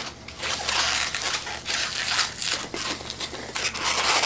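Inflated 160 latex twisting balloons rubbing against each other and the hands as they are twisted into bubbles and pinch twists: a dense, scratchy run of many small crackles.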